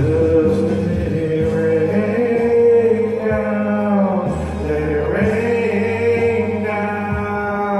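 Music: a male voice sings long, wordless held notes that bend between pitches over a steady backing.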